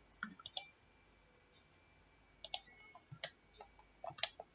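Faint, scattered clicks of a computer mouse and keyboard: a few near the start, a pair and a couple of single clicks in the middle, and a quick cluster near the end.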